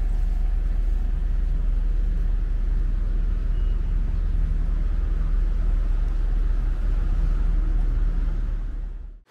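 Steady low rumble of a motor vehicle engine running, fading out near the end.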